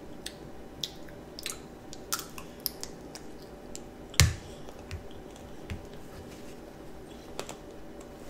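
A child biting and chewing a candied strawberry, its sugar coating crunching in scattered short, sharp cracks, the loudest a little after four seconds in.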